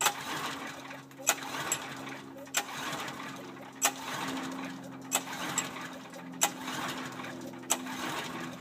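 Briggs & Stratton engine on a Brave log splitter being cranked over again and again without firing, a sharp click about every 1.3 seconds between stretches of mechanical noise. It won't start even with fresh gas, oil and the choke set just off full.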